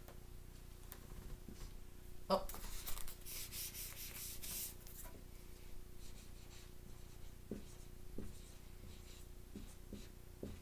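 Marker rubbing and squeaking on a whiteboard as letters are written, the strokes loudest from about two to five seconds in. A sharp tap comes just before them, with a few light ticks of the marker later on.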